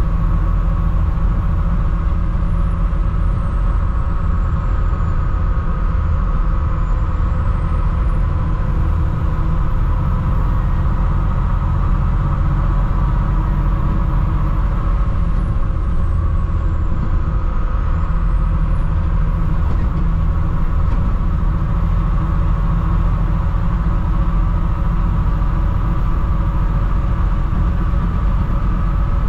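Mercedes diesel engine of a 2007 Thomas HDX school bus running steadily while the bus is driven, a continuous low rumble with only slight changes in load.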